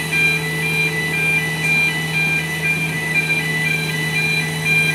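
Level crossing audible warning alarm sounding: an electronic two-tone call alternating between a higher and a lower note, about two notes a second, over a steady low hum.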